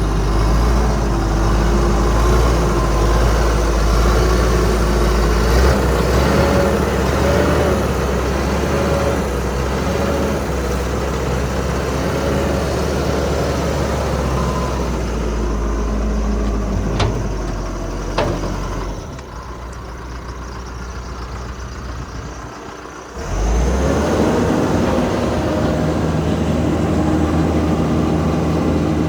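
John Deere 310J loader backhoe's diesel engine running, with wavering whining tones over the rumble as the machine is worked. Two sharp clicks come about two-thirds of the way through, then the sound drops quieter for about four seconds before the engine comes back up loudly.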